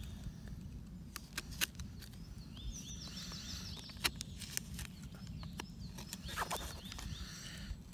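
Knife tip cutting into the bowl of a small hand-carved wooden spoon: a series of short, sharp clicks and scrapes as the blade digs out the wood. A bird sings a short trill of quickly repeated chirps about three seconds in.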